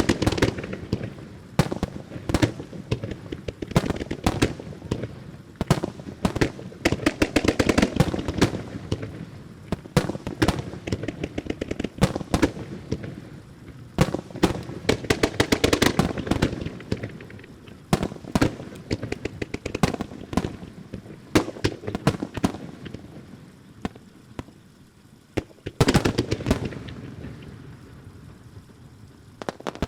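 Super-large starmine fireworks: aerial shells launching and bursting in rapid, dense volleys of booms and crackles with echoing after them. The barrage swells and thins in waves, with a last heavy volley near the end.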